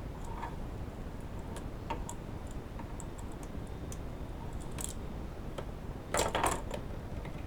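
Scattered light clicks and taps of small hard objects being handled, with a louder short clatter about six seconds in, over a steady low background hum.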